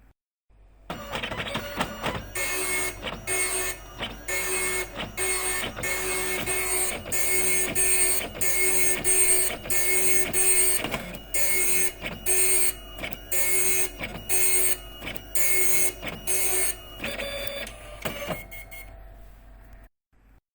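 Epson dot matrix printer printing: the print head chatters in short, even bursts, about one every two-thirds of a second, each with a high-pitched whine. It starts about a second in after a brief silence, eases off near the end and stops briefly just before the end.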